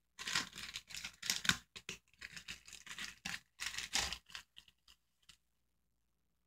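Clear plastic packaging bag crinkling and rustling in the hands as a squishy toy is pulled out of it, a run of short scratchy crinkles that stops about five seconds in.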